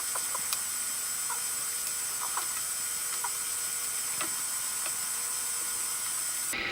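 Steady hiss of recording noise with a few faint, scattered small clicks; the hiss changes character abruptly near the end.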